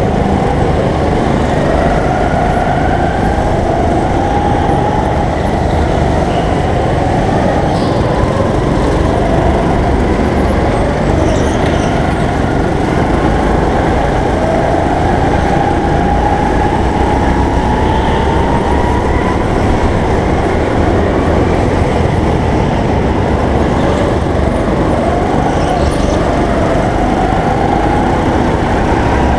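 Go-kart engine running hard, heard from a camera mounted on the kart, its pitch climbing slowly several times as it accelerates and dropping back between, over a heavy rumble of vibration and road noise.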